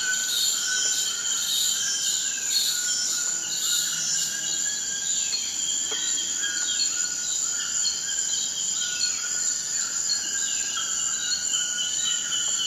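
Rainforest ambience: a steady high-pitched insect drone, with pulsing insect calls for the first few seconds and bird calls falling in pitch, repeated every second or two.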